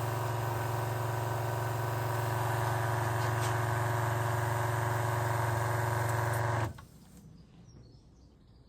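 Battery-powered softwash pump running steadily with an even hum, then cutting off suddenly about two-thirds of the way through.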